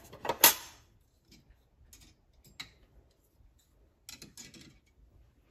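Handling noise: a sharp clack about half a second in, then scattered light clicks and a short run of taps about four seconds in, from small hard parts being handled around the coffee machine.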